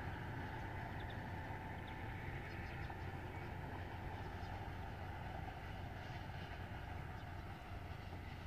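Diesel-hauled freight train heard faintly as it moves away down the line: a steady, low rumble.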